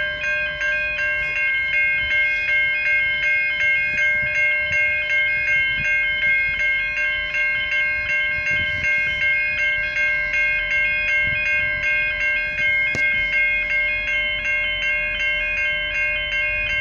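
Railway level crossing bells ringing steadily, an even ding-ding of about two strokes a second on a few fixed ringing tones.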